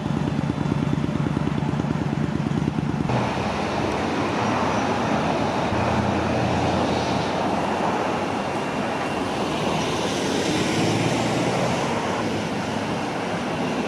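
Road traffic: a vehicle's low engine hum, then, after an abrupt change about three seconds in, the steady rush of passing cars.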